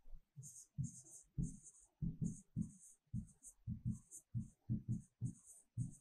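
Handwriting strokes from a pen or marker: a quick run of short scratches with soft knocks, about two to three strokes a second.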